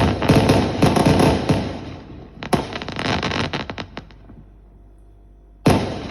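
Display fireworks going off: a rapid run of sharp bangs and crackles, a fading lull, then one loud bang near the end.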